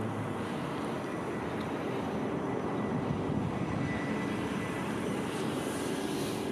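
Steady, even rushing drone with a faint hum, unchanging throughout.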